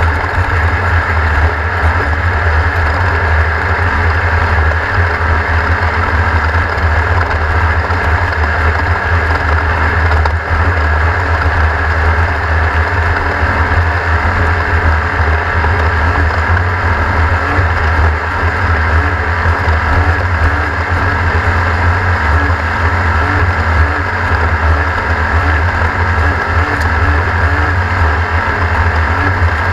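Class 1600 off-road race car's engine running steadily: a loud, low drone with a dense wash of noise over it, holding even with no rises or drops in revs.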